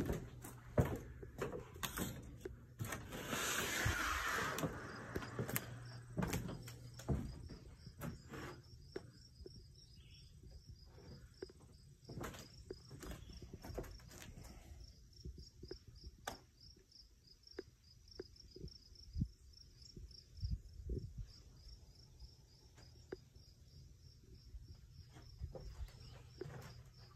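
Footsteps and knocks on wooden floorboards and deck boards, with a short rush of noise about three seconds in. From about four seconds on, insects chirp steadily in a quick, even run of high chirps.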